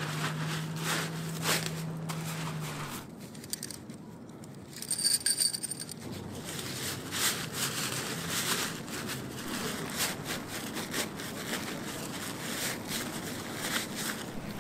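Stiff Dyneema tent fabric crinkling and rustling as it is stuffed and compressed into its stuff sack. A low steady hum stops about three seconds in, and a brief louder high-pitched sound comes about five seconds in.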